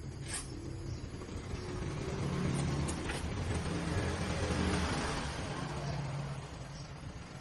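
A motor vehicle's engine running, growing louder towards the middle and then fading.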